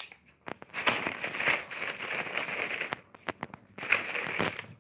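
Crinkly plastic bag of cat treats being shaken and handled: two spells of crackling rustle with small clicks, a long one about a second in and a shorter one near the end.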